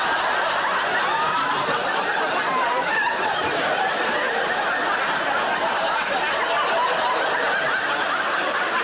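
A large studio audience laughing without a break, a dense, even wash of laughter.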